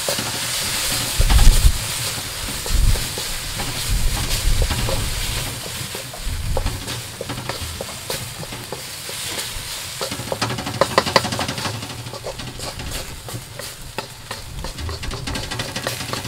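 A thick paste of spiced onions and tomato purée sizzling in a karahi pan as a wooden spoon stirs and scrapes it round the pan. There are a few low thumps in the first three seconds.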